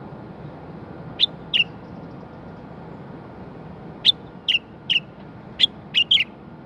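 Common bulbul giving short, sharp calls, each a quick downward-sliding note: two about a second in, then a run of six from about four seconds in, over a steady low background rumble.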